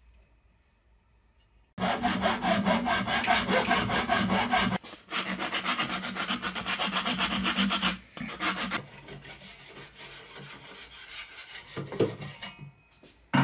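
A hacksaw cutting through a black plastic pipe fitting in fast, even strokes, then a file rasping the freshly cut end, with quieter scraping and a single light knock near the end.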